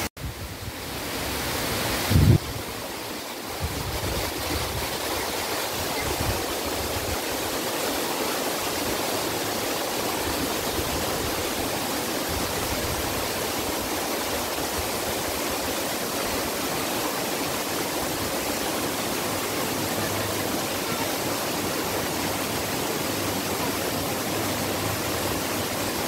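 Rushing water of a small rocky stream cascading over little falls, a steady even rush. A single short low thump comes about two seconds in.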